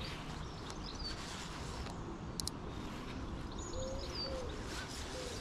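Birds calling: scattered short high chirps, and from about four seconds in a run of low cooing notes, over a steady outdoor background hiss.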